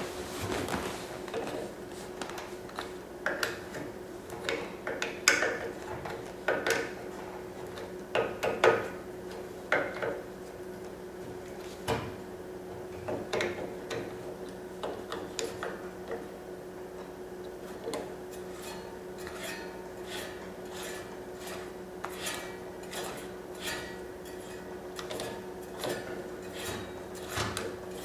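Hand tools and small metal pump parts clicking and tapping as the heater's air/fuel pump is worked on, with a run of quicker, evenly spaced ticks, about two a second, in the second half. A steady faint hum runs underneath.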